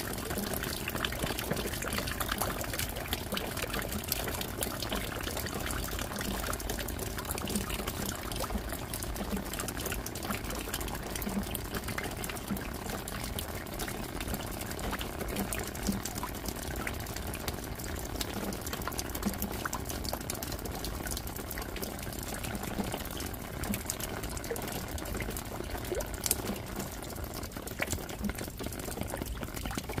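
Steady rain falling: a dense hiss of countless drops splashing, with a low drip repeating about once a second.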